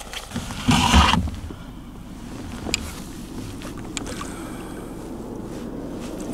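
Kayak on the water with steady low wind rumble on the microphone. A brief loud rustling knock comes about a second in, and a few light clicks of gear come later.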